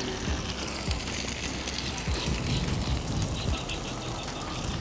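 Handling noise on the camera's microphone: rubbing and scattered low bumps under a steady hiss of wind, as the lens is wiped clean and the camera is moved.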